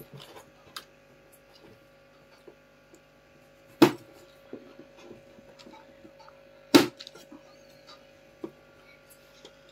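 Roof pieces being cut to shape: two loud sharp snaps about three seconds apart and a few lighter clicks, over a steady faint hum.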